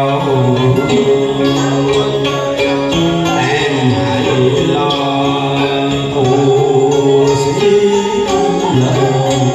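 A man singing a Vietnamese song through a microphone over an instrumental backing with a steady beat.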